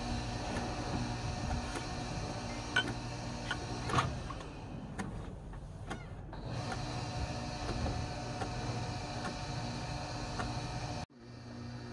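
Steady hum of a boat engine, with a kitchen knife chopping a small flounder through the bone into thin slices on a plastic cutting board: scattered short knocks, the loudest about three and four seconds in. The sound cuts out abruptly for a moment near the end.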